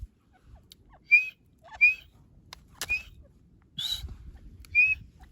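A teetar (francolin) calling in short whistled notes, five of them about a second apart.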